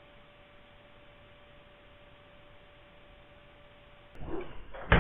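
Steady hiss with a faint constant hum from a CCTV camera's audio. About four seconds in, loud rattling and clattering starts suddenly.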